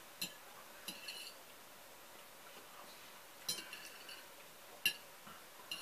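Metal fork clinking against a plate as food is picked up: about five short, sharp clinks with a brief high ring, spaced out irregularly.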